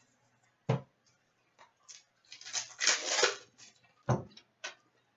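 Trading cards being handled and the foil wrapper of a hockey card pack crinkling, loudest around the middle, with a few sharp taps and clicks, one about a second in and another about four seconds in.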